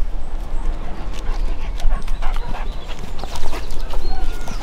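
A dog moving about close by, with many irregular short clicks and scuffs.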